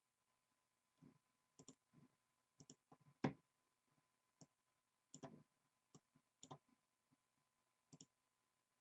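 Faint, scattered clicks of a computer mouse and keyboard, about a dozen irregular taps with one a little louder just after three seconds in, against near silence.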